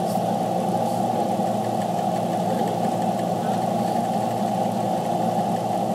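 Car engine running steadily, heard from inside the cabin as an even low drone.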